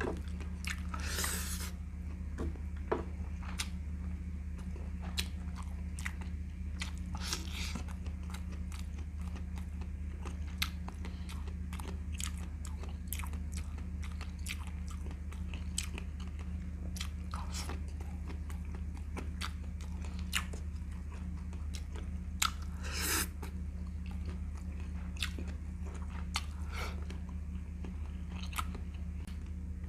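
Close-miked chewing and lip smacking of a person eating chicken and stir-fried cauliflower, with many scattered wet clicks and a few louder short smacks. A steady low hum runs underneath.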